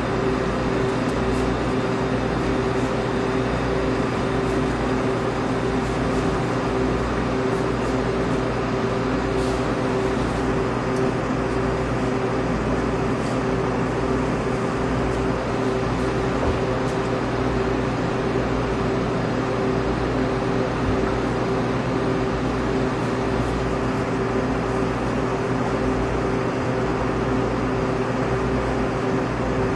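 A steady, unchanging droning hum at a constant pitch, with no beat or breaks.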